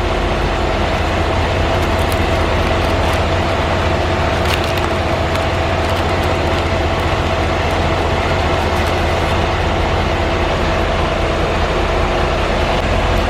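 Steady mechanical drone with a constant hum and a low rumble, heard inside a truck cab, with a few faint clicks in the first few seconds.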